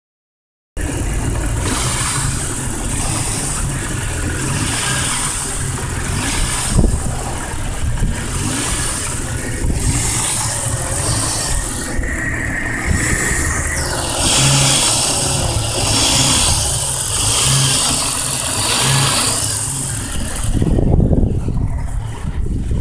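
1998 Jeep Cherokee's 4.0-litre straight-six engine running with a knock, which the owner suspects is rod knock.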